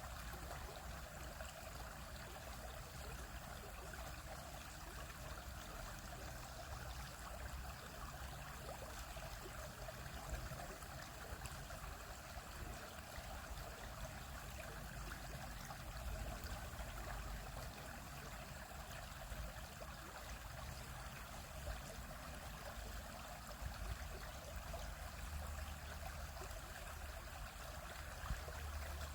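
Shallow stream flowing steadily over rocks.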